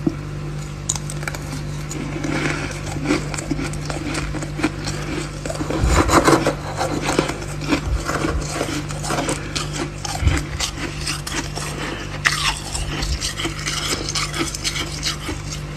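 Frost being scraped off the inside of a mini freezer, a dense crackling rasp that swells about six seconds in, over a steady low hum.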